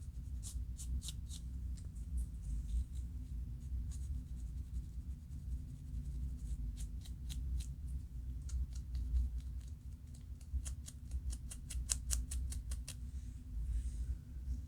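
Scratching at the scalp to loosen dandruff flakes: groups of short, sharp scraping strokes, a few near the start, more around the middle, and a fast run of about five a second near the end. A steady low hum runs underneath.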